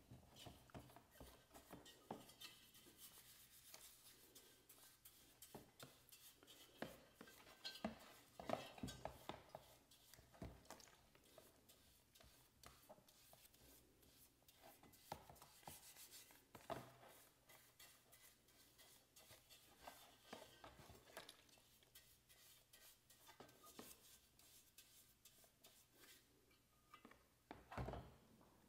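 Faint, irregular clicks, taps and rubbing of small metal parts being handled, as a vintage Coleman lantern is worked on.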